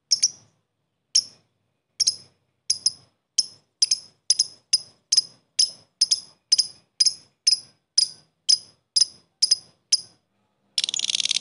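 Lovebird giving its 'ngetik' call: sharp, high ticking chirps, about one a second at first and quickening to two or three a second. After a short pause near the end it breaks into a fast, continuous chattering trill, the 'ngekek'.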